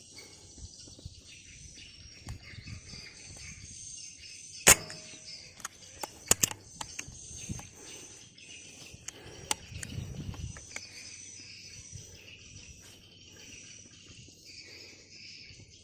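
Crickets and other insects chirring steadily in the background, broken by several sharp clicks and knocks. The loudest comes about five seconds in, and a quick pair follows a second and a half later.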